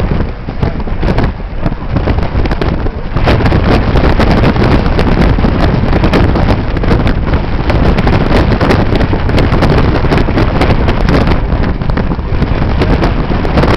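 Wind buffeting the camera microphone on the deck of a moving ferry, loud and gusty, settling into a steady roar about three seconds in.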